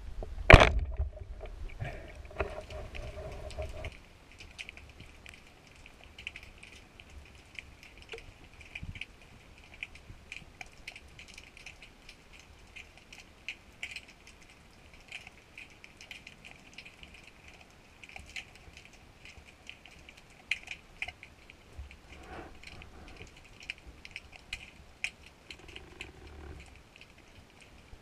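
Underwater ambience picked up by a GoPro: a steady, irregular crackle of fine clicks, with one sharp knock about half a second in and a low rumble that stops abruptly about four seconds in.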